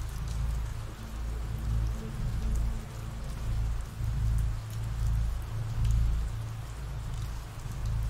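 Ambient rain sound effect: a steady patter of rain with scattered individual drops. Underneath, a low rumble rises and falls every second or two.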